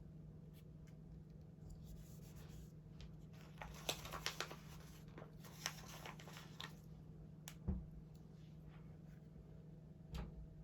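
Faint crinkling and rustling of a paper sticker sheet as small stickers are peeled off and pressed onto planner pages, with a few light taps, over a low steady hum.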